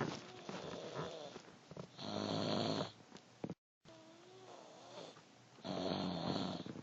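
Snoring: two slow, noisy breaths about three and a half seconds apart.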